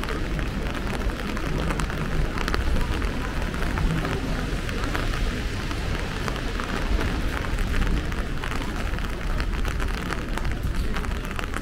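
Steady rain, with a dense run of small sharp drop ticks over a continuous hiss and a low rumble underneath.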